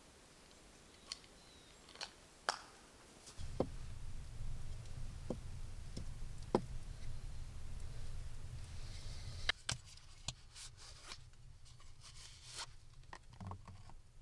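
Scattered small clicks and light scraping sounds of handwork. A low steady hum sets in about three seconds in and stops after about ten seconds.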